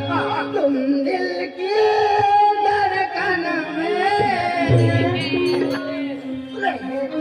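Live folk singing with accompaniment: a voice singing long, wavering melodic phrases over a steady held note.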